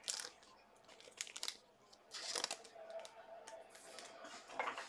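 Trading cards being handled and flipped through by hand: faint rustling with a few short clicks and crinkles, the loudest about two and a half seconds in and again near the end.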